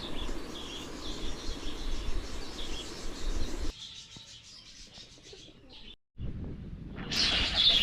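Hungry pet budgerigars chirping and chattering at feeding time, a steady run of short high chirps. It goes quieter after about three and a half seconds, drops out briefly near six seconds, then the chirping comes back louder.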